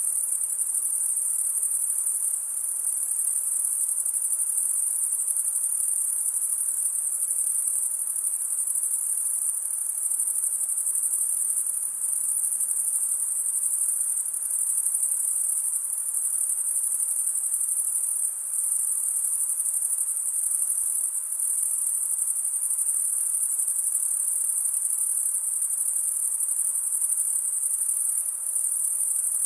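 Dense chorus of crickets chirping continuously in a high, steady shimmer, a summer-night insect ambience.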